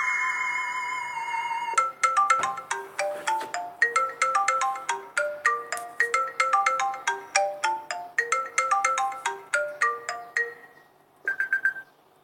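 iPhone ringtones played back to back: a tone gliding downward fades out, then a ringtone melody of quick, short chiming notes plays for about nine seconds. A few quick high notes sound near the end.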